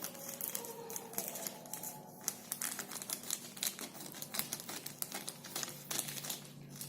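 Packaging crinkling as a delivery package is handled and opened, with many irregular crackles and rustles.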